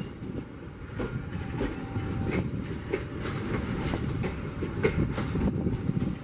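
Passenger coaches of a commuter train rolling past on the track: a steady rumble with scattered sharp clacks of the wheels over the rails.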